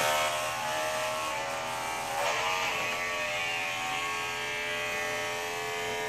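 Electric hair clippers running with a steady buzz while shaving a head of hair; the buzz wavers briefly about two seconds in.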